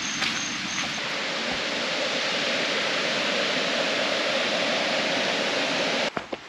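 Steady rush of falling water from Foster Falls, an even hiss that swells slightly and cuts off suddenly near the end.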